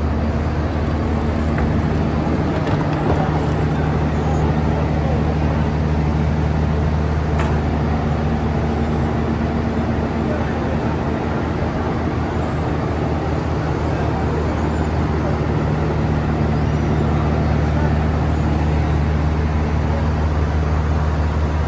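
Diesel passenger train idling at a station platform: a steady low engine drone, with faint voices in the background.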